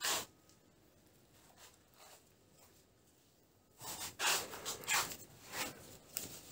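Rustling and scraping of net twine, rope and a plastic netting needle being handled close to the microphone: a short scrape right at the start, then a run of scratchy rustles over the last couple of seconds.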